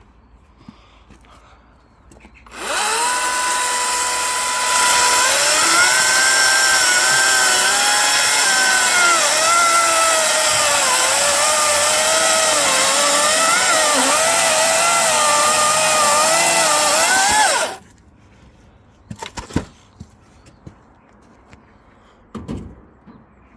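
Electric chainsaw starting up about two and a half seconds in and running with a steady whine. From about five seconds in it cuts through a freshly felled oak log, getting louder with its pitch wavering and dipping under load. It stops suddenly after about fifteen seconds, and a few short knocks follow near the end.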